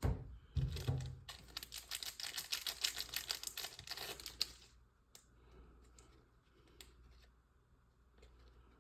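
A trading-card pack wrapper being torn open and crinkled by hand, a dense rapid crackling for about three seconds, then a few faint clicks and rustles as the cards are handled.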